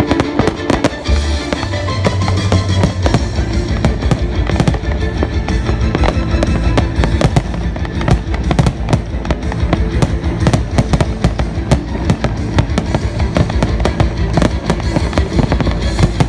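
Fireworks display: a dense, rapid run of bangs and crackles, with music playing underneath.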